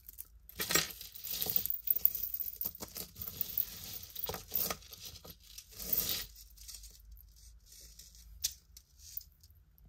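Packaging rustling and crinkling as hands handle it, for about six seconds, followed by a few light clicks and taps.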